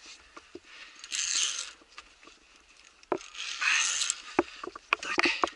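Metal carabiners and gear clinking and knocking against the steel safety cable and wooden posts of a ropes-course obstacle, a handful of sharp clicks mostly in the second half, with two short hissing rustles about a second in and past the middle.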